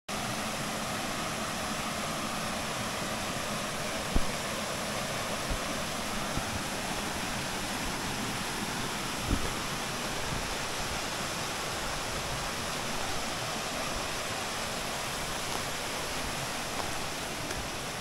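Mountain stream rushing and splashing steadily over rocks and small cascades. Two short low thumps stand out above the water about four and nine seconds in.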